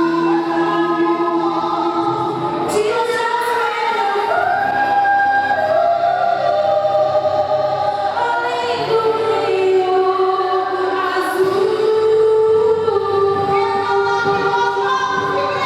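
A group of voices singing a gospel hymn in sustained, held notes, with female voices prominent.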